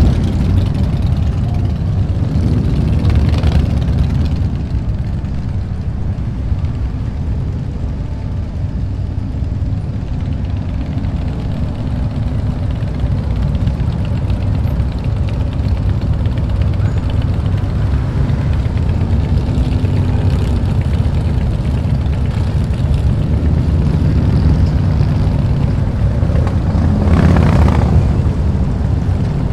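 Street full of motorcycle engines rumbling at low speed and idling, with louder swells of a bike passing close about three seconds in and again near the end.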